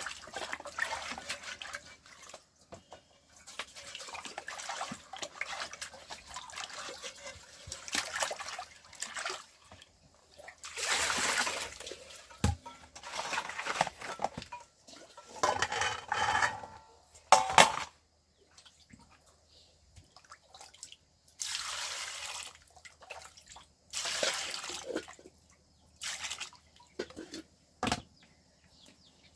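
Water splashing and trickling in irregular bursts of a second or two, with short gaps between them and a few sharp knocks.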